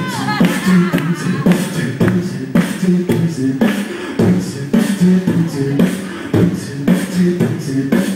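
Beatboxing into a handheld microphone: a steady rhythm of sharp vocal kick and snare sounds over a low hummed bass line.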